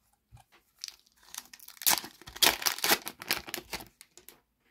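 A trading-card pack's wrapper being torn open and crinkled by hand, an irregular crackling that starts about a second in, is loudest in the middle and dies away near the end.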